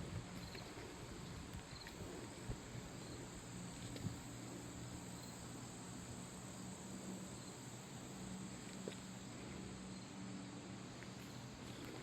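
Outdoor insects chirping in a steady chorus, with a high continuous buzz and soft repeated chirps, plus a few faint clicks.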